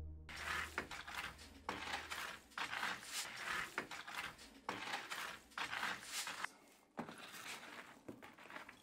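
A long wooden pole raking burning wood and embers across the floor of a wood-fired bread oven: a run of short scraping, rustling strokes, about two a second.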